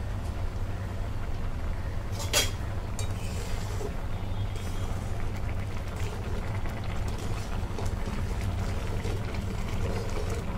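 Milk and grated bottle gourd bubbling at a boil in a steel pan, over a steady low hum. There is a sharp clink about two seconds in.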